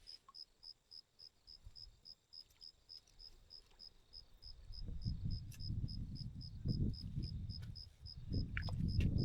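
A cricket chirping steadily, about three chirps a second. About halfway through a low rumble rises beneath it and becomes the loudest sound near the end.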